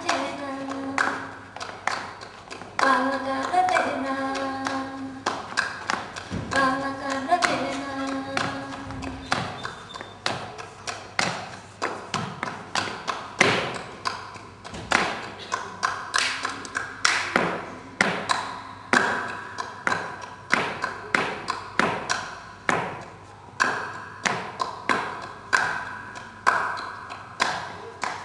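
A woman sings flamenco unaccompanied over sharp percussive strikes for about the first ten seconds. Then the singing mostly stops and flamenco footwork (zapateado) carries on alone: dance shoes striking the floor in a steady rhythm, about three strikes a second.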